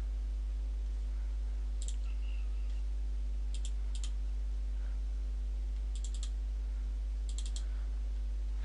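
Computer mouse button clicking in five short groups, several as quick double clicks, over a steady low electrical hum.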